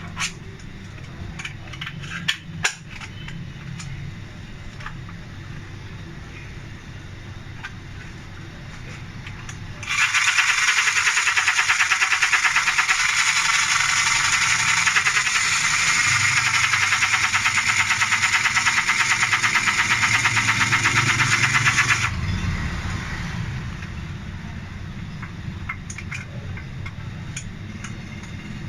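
Battery-powered mini sewing machine running for about twelve seconds, its needle mechanism making a fast, even rattle that starts suddenly and stops suddenly. A few light clicks come before it, and a low hum is heard throughout.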